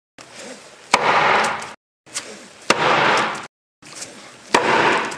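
A 0.7 kg claw hammer striking the hard black shell of an Aurora Mk1 unit three times, about once every two seconds. Each blow is a sharp crack with a short noisy tail. Each stroke is cut off abruptly into silence.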